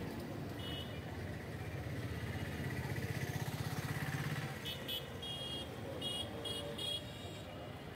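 Busy street traffic of auto-rickshaws and other three-wheelers, with a steady low rumble. An engine passes close with a pulsing rumble a few seconds in, followed by several short high-pitched beeps.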